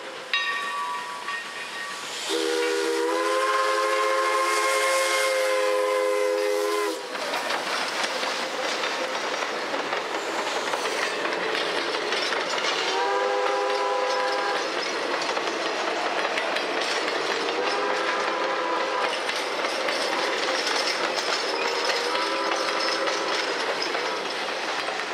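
Magma Arizona No. 7, a 2-8-2 Mikado steam locomotive, sounding its multi-tone steam whistle: a short toot, one long blast of about four seconds, then three shorter blasts. From about seven seconds in, its train of passenger cars rolls past with steady wheel clatter on the rails.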